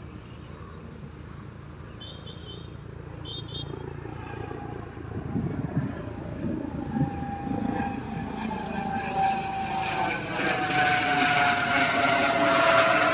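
Propeller aircraft approaching overhead: its engine drone grows steadily louder, with a tone slowly falling in pitch as it nears.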